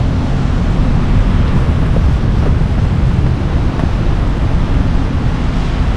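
Steady low rumble of downtown city traffic mixed with wind buffeting the microphone, with no pauses or distinct events.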